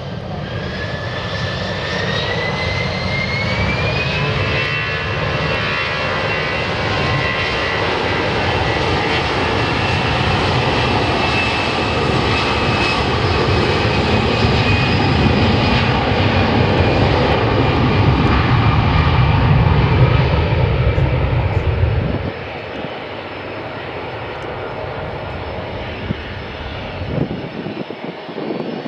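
Jet airliner engines spooling up, their whine rising in pitch over the first four seconds and then holding steady over a loud, building rumble. The low rumble drops away abruptly about 22 seconds in, leaving a quieter engine noise.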